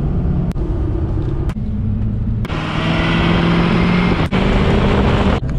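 Pickup truck driving down a highway: a steady engine drone under road and wind noise, in short clips spliced together so the pitch and level jump at each cut. From about halfway in, a louder rush of tyres on wet pavement and wind, heard from beside the front wheel.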